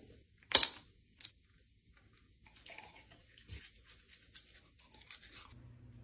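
Two sharp clicks in the first second or so, then a toothbrush scrubbing a dog's teeth in quick, rapid strokes for about three seconds. A low hum comes in near the end.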